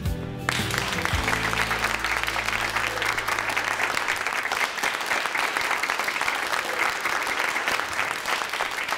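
A small group of people applauding, starting about half a second in and going on steadily. Under it, background music with low held notes fades out about midway.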